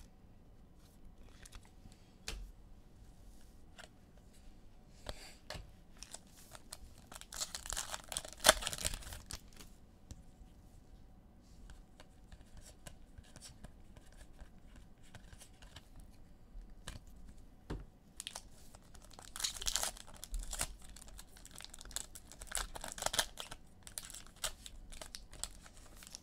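Foil trading-card pack wrappers being torn open and crinkled, in two bouts a few seconds long, one about a third of the way in and one near the end, with light taps and clicks between.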